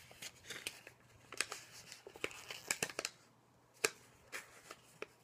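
Quiet rustling of paper handled close by, with a few sharp clicks and ticks scattered through it.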